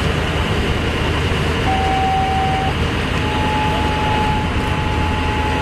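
An engine idling steadily: a constant low hum under a loud, even rush of noise. A thin, steady high tone sounds twice over it, once briefly and then for longer near the end.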